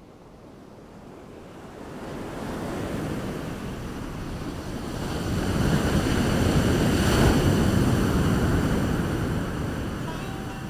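Sea waves washing in a steady surge, swelling from faint to a peak about two-thirds of the way through, then easing.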